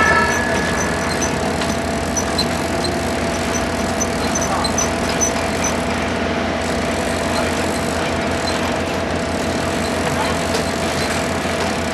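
Diesel engine of construction machinery running steadily at a track work site, with faint high clicks scattered through the first half.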